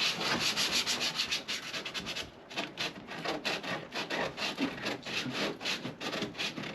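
Sandpaper rubbed back and forth by hand over fiberglass, about four strokes a second, with a short pause a little over two seconds in: smoothing a repair and rounding off its edge.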